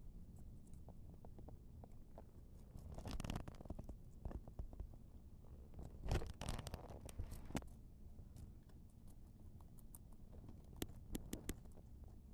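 Guinea pigs munching chopped vegetables, with many small crunching clicks. A few louder rustling scrapes come from the plastic cup they are feeding from, about three seconds in and again around six seconds.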